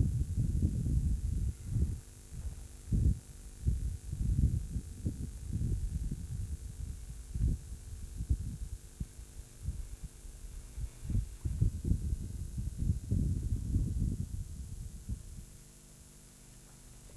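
Wind buffeting a camcorder microphone in irregular low rumbling gusts that die down about fifteen seconds in, over a faint steady hum.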